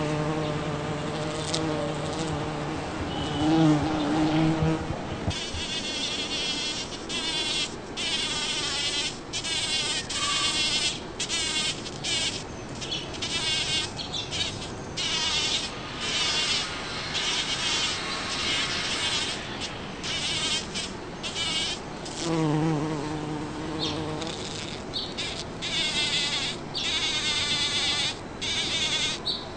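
Bumblebee buzzing as it works rose blossoms. A steady low, pitched buzz lasts about five seconds and rises and wavers in pitch toward the end of that stretch. It returns briefly about 22 seconds in, with a fainter, higher buzzing in between.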